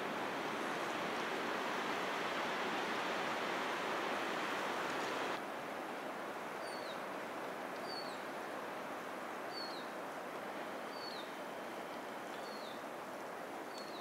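A steady rushing noise cuts off abruptly about five seconds in. After that a small songbird repeats a short, high call that falls in pitch, about every second and a half, six times.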